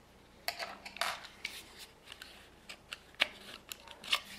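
Small tools clicking and scraping as they are slid out of and back into the slots of a credit-card-sized plastic multi-tool case, in a string of short, separate clicks with the sharpest about three seconds in.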